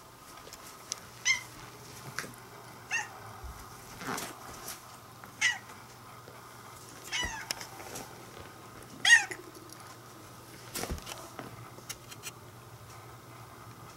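Orange-and-white cat meowing in a series of short calls, about six in nine seconds, the loudest and longest near the nine-second mark with a falling pitch. The owner reads the crying as frustration at a moth flying out of reach. There are two soft knocks in between.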